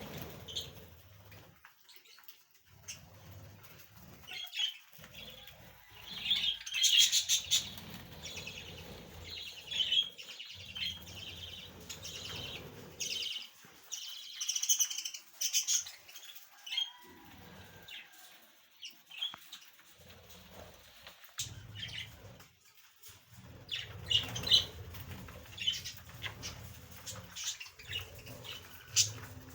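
Small cage birds chirping, with bursts of wing flapping.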